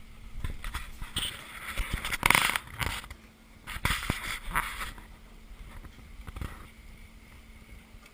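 Stainless steel hose clamps being fitted and tightened around the Venturi's hose: a run of sharp clicks, knocks and short scraping bursts of metal and tool handling, busiest in the first half and dying down after about five seconds, over a faint steady hum.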